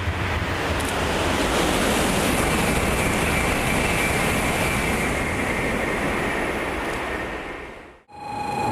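Shinkansen Type 923 Doctor Yellow passing at speed in the rain: a steady rushing noise with a faint high whine in the middle. It cuts off abruptly near the end, and a different steady hum with several fixed tones begins.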